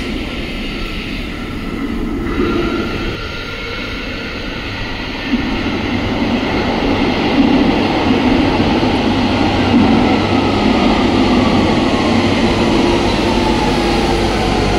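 London Underground 1992 Stock Central line train running into the station platform, its rumble growing louder about five seconds in. Near the end it brakes, with a whine falling steadily in pitch as it slows.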